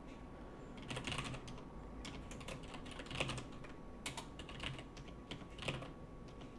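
Computer keyboard being typed on in short, irregular bursts of keystrokes.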